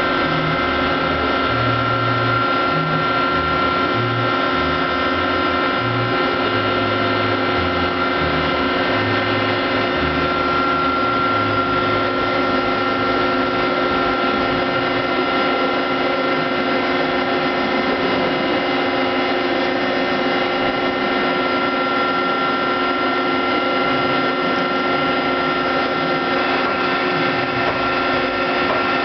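Mori Seiki SL-3A CNC slant-bed lathe running: a steady mechanical whine made of several fixed tones over a whirring of gears. Uneven low rumbling comes and goes during the first dozen seconds.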